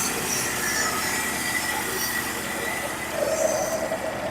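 Norwood HD36v2 portable bandsaw mill cutting a board from a pitch pine cant: a steady blade whine and squeal over the running engine, with a brief louder rise about three seconds in.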